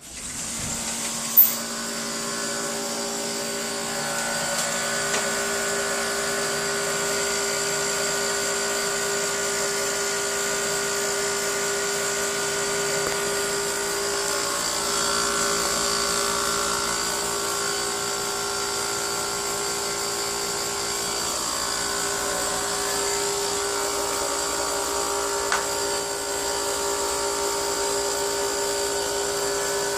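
Vogga air conditioner running with a steady, multi-toned motor whine, the unwanted noise the unit is making. It comes up over the first few seconds, with a sharp click about a second and a half in.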